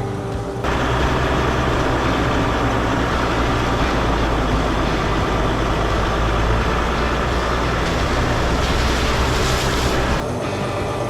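Mercedes Sprinter van driving: a steady low rumble of road and engine noise that starts abruptly about half a second in and cuts off about ten seconds in.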